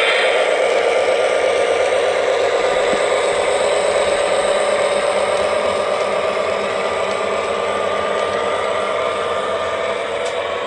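Lionel Lion Chief Mystery Machine O-gauge diesel locomotive and its cars running on three-rail track. It makes a steady, rattling mechanical rumble of wheels and motor gearing, blended with the locomotive's diesel engine sound effects. The rumble eases a little towards the end as the train moves away.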